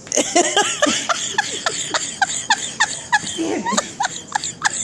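Hard, high-pitched laughter in quick repeated bursts, with a lower voice cutting in about three and a half seconds in.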